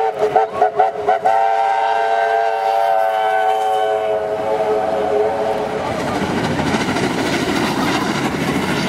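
Steam locomotive whistle sounding a quick string of short toots, then one long blast of about four seconds, over the rumble of the passing train. After the whistle stops the train noise carries on.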